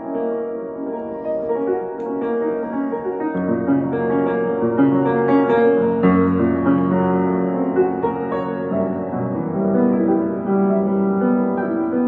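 Upright piano playing an improvised piece in F sharp major, many notes sounding together, with low bass notes coming in about three seconds in.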